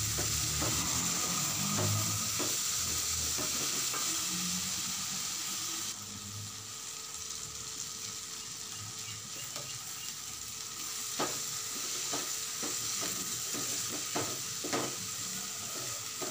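Chopped onions and tomatoes sizzling in oil in a stainless steel pan, sautéing for a curry base, while a wooden spatula stirs and scrapes against the pan. The sizzle drops a little quieter about six seconds in, and sharper scrapes come through later.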